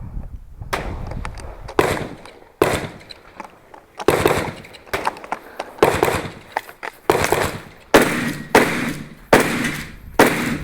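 Gunshots fired one after another at a steady pace: about ten shots, roughly a second apart, each followed by a short echo.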